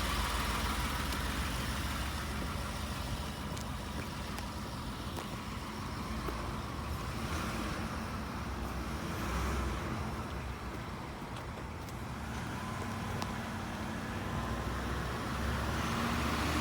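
Ford F-150 pickup with the 5.0 V8 driving along: steady engine and road noise, with a few faint clicks.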